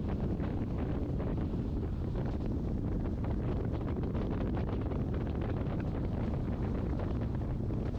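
Wind rushing and buffeting over the microphone from a moving train, over the steady low rumble of the train running.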